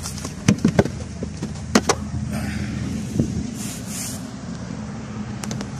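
A few sharp plastic knocks and clicks in the first two seconds as the lid of a plastic fish cooler is handled and shut. Under them runs a steady low engine hum.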